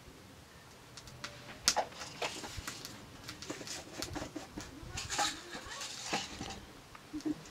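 Irregular small clicks, knocks and rustling from things being handled by a wood-fire stove, with one sharper knock about one and a half seconds in.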